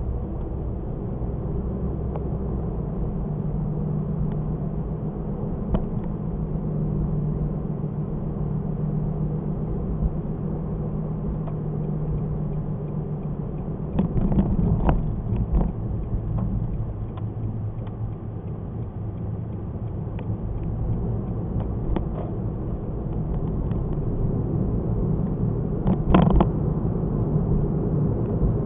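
Car on the move heard through a dashcam: a steady low engine and road rumble with a faint hum, broken by a few short sharp knocks, the loudest about 26 seconds in.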